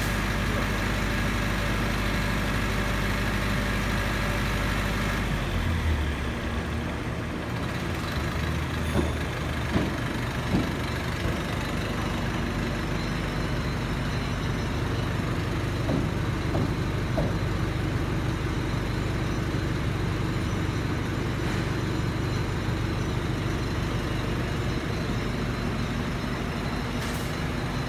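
A 10 kW canopied silent diesel generator set running steadily with a low, even hum. Its sound changes about five or six seconds in, and there are three short knocks about ten seconds in.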